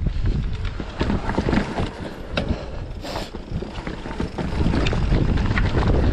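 Wind buffeting the microphone over the rumble and irregular clicking and rattling of a mountain bike on a rough singletrack trail. It eases off for a couple of seconds midway, then picks up again.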